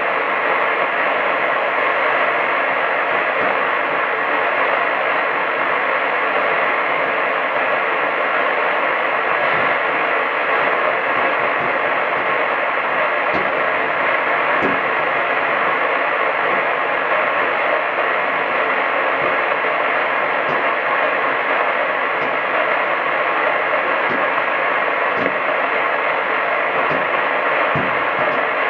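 Medium-wave AM radio receiver giving out steady static hiss with no programme on the channel, broken by a few faint crackles.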